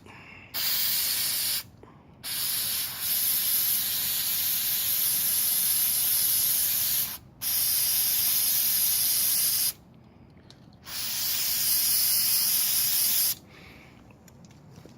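Aerosol can of carburetor cleaner spraying in four bursts: a short one, a long one of about five seconds, then two more of two to three seconds each. It is being sprayed onto a manifold tuning valve to clean off burnt deposits.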